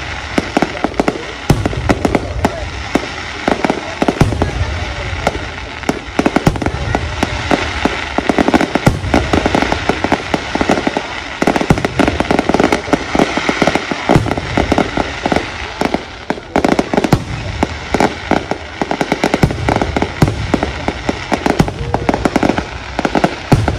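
Fireworks display in its closing barrage: an unbroken run of bangs and crackling many times a second, with low booms under them.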